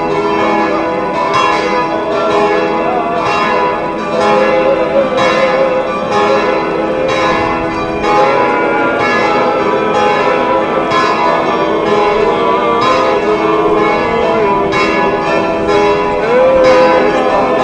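Church bells pealing continuously, struck about once a second with their tones overlapping, over the voices of a crowd.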